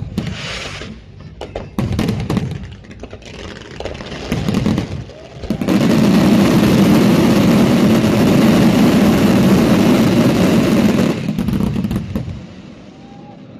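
Fireworks going off: separate bangs and crackles at first, then about five seconds in a dense barrage merges into one continuous loud rumble for about six seconds before dropping away near the end.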